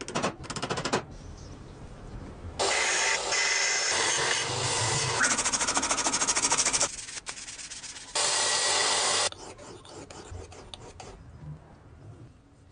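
Abrasive rubbing and scraping on an old knife, in spells. There is a short one at the start, a long one of about four seconds that breaks into quick even strokes near its end, and another of about a second later on.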